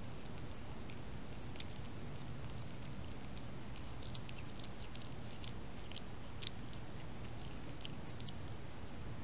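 Virginia opossum chewing right at the trail camera's microphone: scattered small crisp clicks starting about halfway through, two sharper ones a little past the middle. Underneath is a steady hiss and a constant thin high tone.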